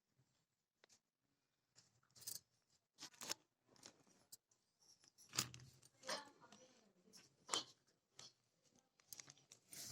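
A rat chewing peanut kernels: a run of short, sharp crunches at an irregular pace, with the loudest ones about halfway through and a quick cluster near the end.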